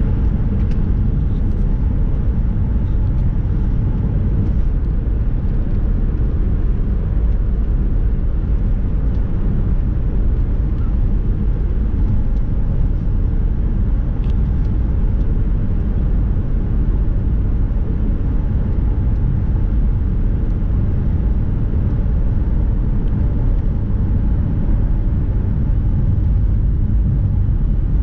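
Nissan car driving at steady speed, heard from inside the cabin: an even low rumble of engine and tyre noise that holds constant throughout.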